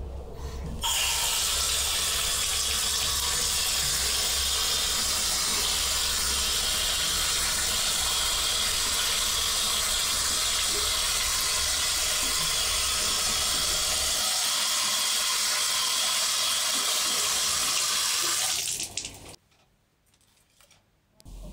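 Water tap turned on about a second in and running steadily into a sink while hands are washed under it, then shut off near the end.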